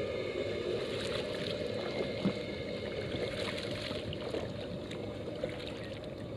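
Kayak paddle strokes, the blade dipping and splashing on alternate sides with water dripping off it, over a steady low rumble.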